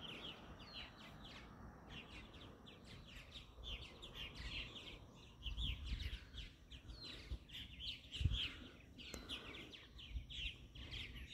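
A flock of purple martins calling on the wing: a steady stream of short, overlapping chirps, with a few brief falling notes. A few low rumbles come in around the middle.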